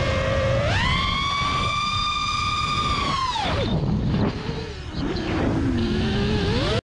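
FPV racing quadcopter's brushless motors (Hypetrain Blaster 2207-2450kv) and props whining. About a second in they are punched to full throttle on a 4S LiPo, and the pitch jumps up and holds for about two and a half seconds. Then the throttle is chopped and the pitch falls steeply, wavers low, and climbs again near the end.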